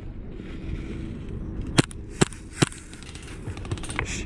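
Airsoft gun firing three sharp single shots in quick succession, with a fainter click near the end, over low rumbling handling noise.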